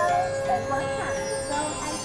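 Music with long held notes, and people's voices talking under it.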